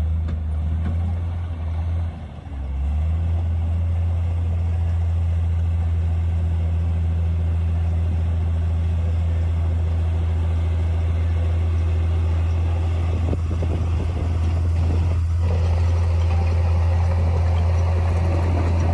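Komatsu D58P bulldozer's diesel engine running steadily, with a short dip about two seconds in and two brief knocks some two-thirds of the way through.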